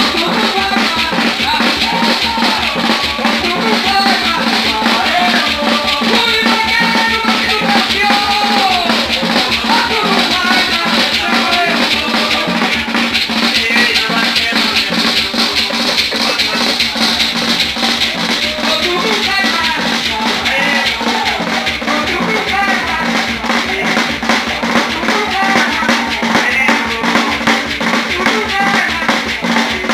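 Terecô ritual music: drums and shaken rattles keep a steady beat while voices sing over them.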